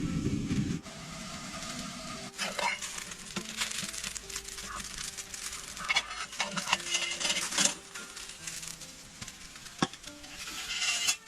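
Camp cooking sounds: food sizzling and utensils clicking and scraping against a pan in scattered strokes, over quiet background music.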